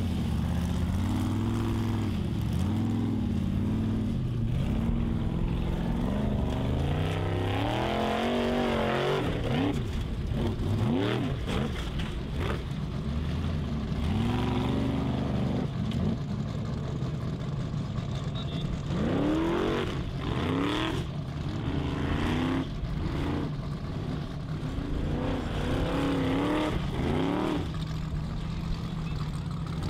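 Formula Offroad buggy's engine revving hard in repeated surges and drops as it claws up a loose dirt hillside, with sharp spikes of revs in the second half.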